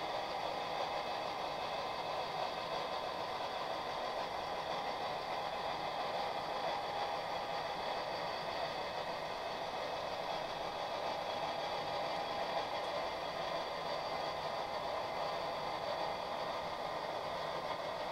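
HO-scale model train running along the track: a steady running noise from its electric motor and wheels on the rails, with a faint whine.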